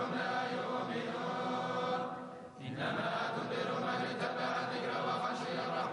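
Background music of many voices chanting together in chorus, dipping briefly about two and a half seconds in.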